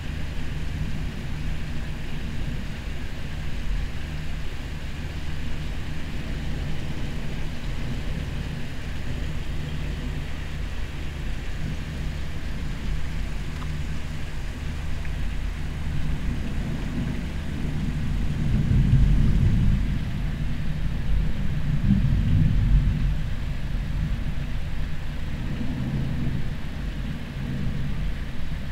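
Air conditioner running with a steady low hum. Low rumbles of thunder swell up twice, about two-thirds of the way through.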